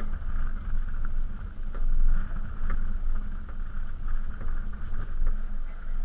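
Steady low rumble of wind and water around a small fishing boat, with a faint steady hum underneath and a few scattered faint clicks.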